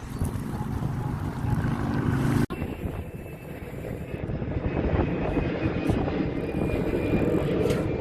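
Motor boat engine running steadily while the boat is underway, with wind buffeting the microphone. There is a momentary dropout about two and a half seconds in.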